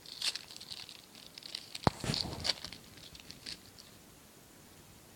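Foil booster-pack wrapper crinkling and crackling as it is torn open, with a sharp click about two seconds in; the crinkling stops about four seconds in.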